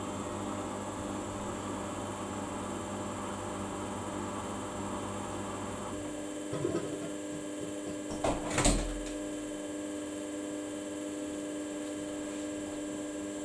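Samsung ecobubble washing machine running with a steady hum. About halfway through, the louder running noise stops and only a steady hum is left, then come a few short knocks and clicks, one louder than the rest.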